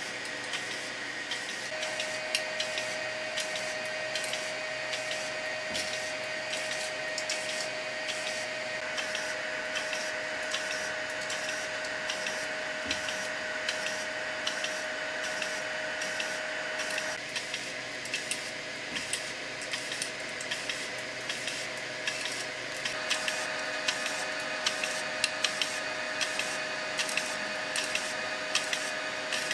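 3D printer's stepper-driven extruders, a Bondtech BMG and an E3D Titan, rapidly retracting and re-feeding filament in a retraction torture test. A steady motor whine shifts pitch a few times over rapid ticking clicks, which grow busier in the last several seconds.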